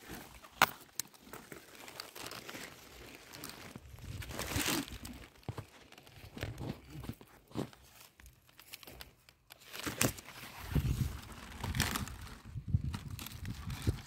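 Large cabbage leaves rustling and crinkling as they are handled and pulled from the plant, with a few sharp snaps. A low rumble of handling noise comes in over the last few seconds.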